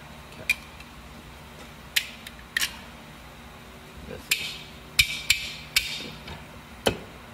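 Sharp metal clicks and clinks of a steel snap ring and snap ring pliers as the ring is worked into the bore of a Bridgeport bull gear housing, about eight in all, several in a quick cluster about five seconds in.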